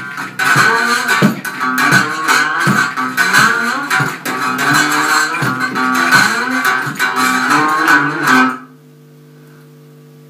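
A homemade electric guitar is strummed over a regular low beat, ending abruptly about eight and a half seconds in. A low steady hum remains afterwards.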